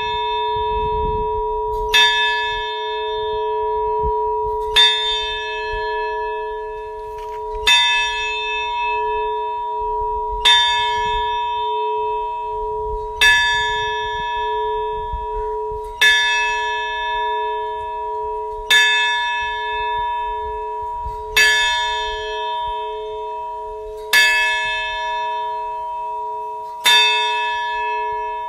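Large rope-pulled tower bell tolling slowly, struck ten times at an even pace of about one stroke every three seconds. Each stroke rings on in a steady hum that wavers and carries through to the next strike.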